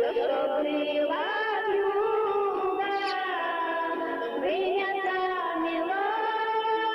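A woman singing a song with music, in long held notes with sliding pitch.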